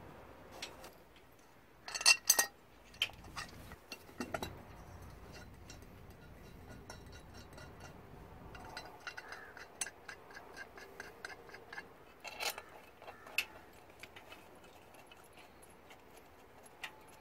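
Metallic clinks and clicks of a cast aluminium rocker cover and its bolts being handled and set onto a Doosan diesel engine, with a loud cluster of sharp clinks about two seconds in and a few lighter knocks later on.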